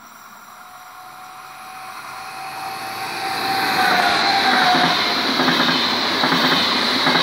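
WESTbahn Stadler KISS double-deck electric train approaching and passing at speed: wheel-and-rail noise swells over the first four seconds and then stays loud. A steady whine runs through it and slides lower in pitch as the front of the train goes by.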